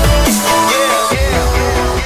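Background electronic dance music in a dubstep style, with heavy deep bass and swooping synth tones; the bass drops out about a quarter second in and returns about a second in.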